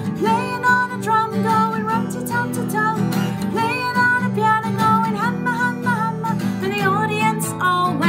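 A woman singing to her own strummed acoustic guitar.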